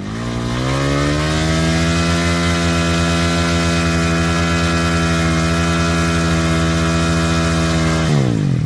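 Small motocross bike engine revved up over the first second and held at steady high revs at the starting gate, then dropping back about eight seconds in.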